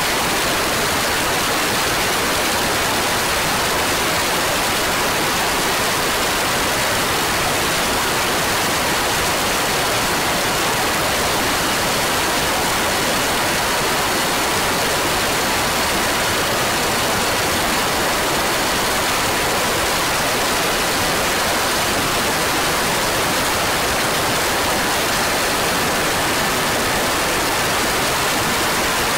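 Steady loud hiss that stays level and even throughout, with a few faint steady whistle tones in it. No engine note or revving is heard.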